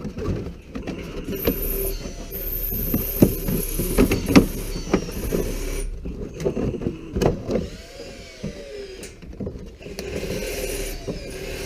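A power tool whirring for several seconds, then again briefly near the end, among sharp knocks, clicks and rattles of tools and parts being handled.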